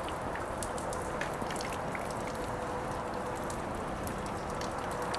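Steady outdoor background noise with many small scattered ticks and a faint steady hum.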